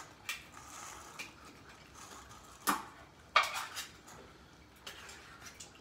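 Kitchenware clinking and clattering: a handful of separate sharp knocks, the loudest about three and a half seconds in.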